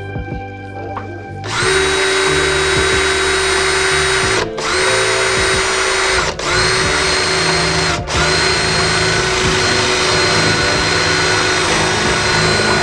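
Electric power tool starts about a second and a half in and runs steadily and loud, its motor dropping out briefly three times before picking straight back up.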